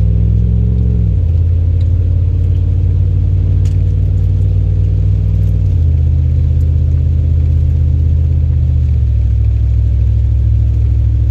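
Car engine and road drone heard inside the moving car's cabin: a loud, steady low hum whose pitch steps down three times, about a second in, near six seconds and near nine seconds.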